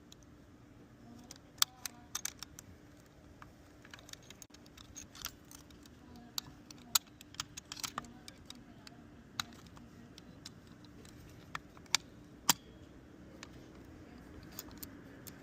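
Keys and small lock parts being handled: scattered, irregular sharp metallic clicks and taps, with the sharpest ones about a second and a half in, around seven seconds, and two close together near the twelve-second mark.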